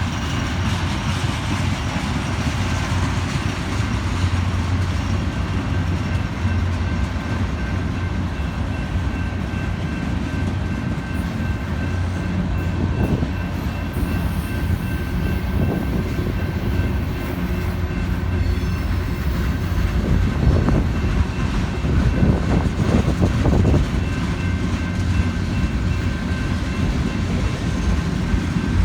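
Freight cars of a manifest train rolling past in a steady heavy rumble, with a thin steady high tone over it. A few louder clunks of wheels come about halfway to two-thirds of the way through.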